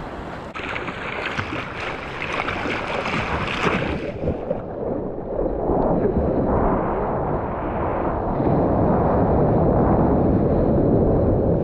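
Ocean water sloshing and splashing around a surfer on a longboard, with wind buffeting the microphone of a helmet-mounted GoPro. About four seconds in, the sound turns muffled and deeper, and a louder rumble builds.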